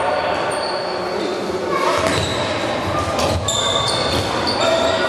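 Floorball game sounds echoing in a sports hall: shoes squeaking on the court floor in short high-pitched squeaks, a few sharp clacks of sticks and ball around the middle, and players shouting.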